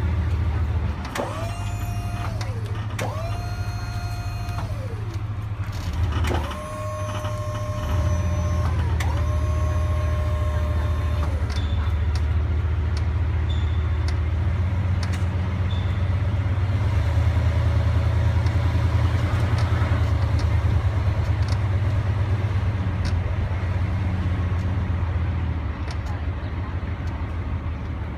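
Tow truck engine running with a steady low rumble as it drives off with a car on its wheel-lift, a little louder in the middle stretch. Four short whines in the first ten seconds or so, each rising, holding and then dropping away.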